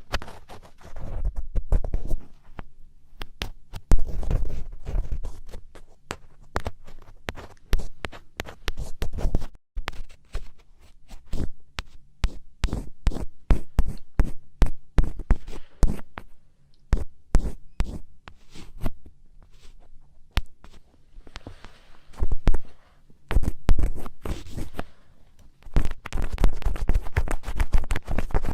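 Ear-cleaning ASMR scratching: an ear pick scraping hard in quick, irregular strokes, a dense run of sharp scratches with deeper rubbing thuds. The strokes thin out in the middle and crowd together again near the end.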